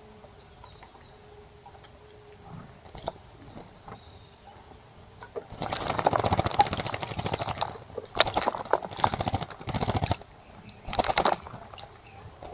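A bird splashing in a bird bath, fluttering its wings rapidly through the water in several bursts of about half a second to two seconds, starting about halfway in.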